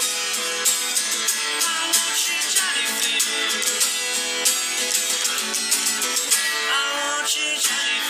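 Acoustic guitar strummed in a steady rhythm of chords.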